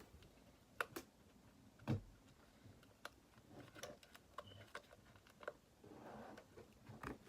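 Quiet handling of small plastic kit parts and sticky foam pads: scattered light clicks and taps, a few a second at most, with a faint rustle near the end.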